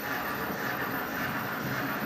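HO scale Märklin model steam train, locomotive and freight wagons, running across a metal truss bridge: a steady, even rolling rumble from the wheels on the track and the locomotive's motor.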